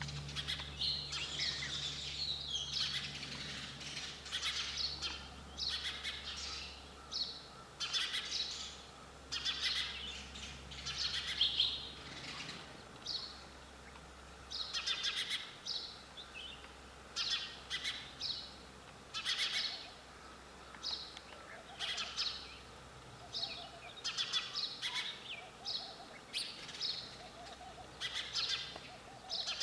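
Sparrows chirping: short, high chirps, thickly overlapping at first, then coming in a repeated run of about one chirp a second.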